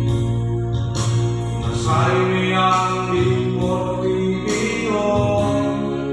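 A man singing a Christian song with held notes, accompanied by sustained chords and bass played on a Yamaha PSR-S750 keyboard.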